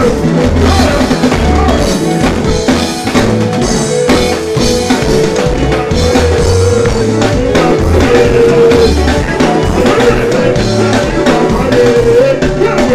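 Loud live band music with a steady drum kit beat and a wavering sung melody line.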